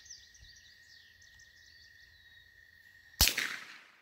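A single shot from a Henry youth .22 lever-action rifle about three seconds in: one sharp crack with a short tail. Before it, birds chirp faintly over a steady high whine.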